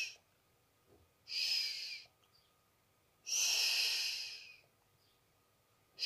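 Sipping yerba mate through a metal bombilla: about three hissing slurps, each roughly a second long, with a faint whistle in them. The last one starts near the end.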